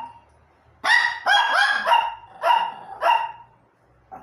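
Dogs barking: about six sharp, high-pitched barks in quick succession, some overlapping, then a faint short bark near the end.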